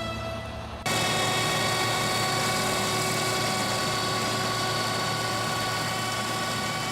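Sweet potato harvester and its tractor running steadily in the field, an even mechanical din with a constant engine hum. It starts abruptly about a second in and cuts off suddenly at the end.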